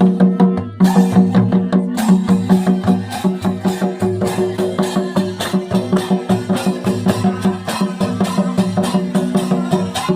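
Santhal folk dance music: hand drums beating a fast, even rhythm, with sharp knocking percussion over it.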